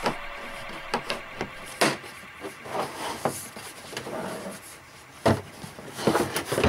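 Hard plastic tool carrying case being handled: a latch snapping shut, then a series of sharp clicks, knocks and bumps as the case is lifted and turned over.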